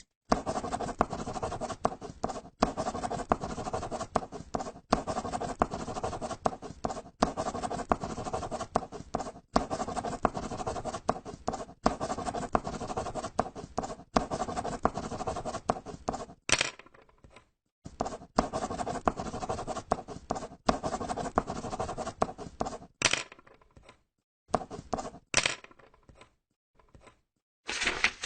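Paper being folded and crumpled: dense crinkling and crackling with brief breaks, thinning out after about sixteen seconds to separate crackles with a few louder crunches.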